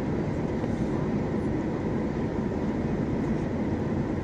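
Steady cabin noise inside a Boeing 737 MAX airliner in descent: a low drone of the engines and airflow.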